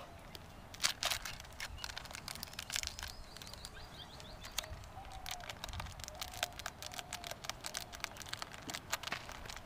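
Wood campfire crackling, with irregular small sharp pops, under a pot of water being heated. Faint bird chirps are heard in the background near the middle.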